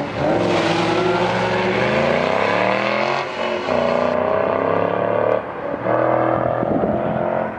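Ford Mustang engine revving hard under acceleration on an autocross course, its pitch climbing and then dropping sharply twice, about three seconds in and again about five and a half seconds in, before climbing again.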